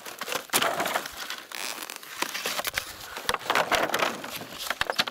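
Crinkling and crackling of a plastic bottle and dry debris being handled and poked through, a dense run of irregular crackles and clicks.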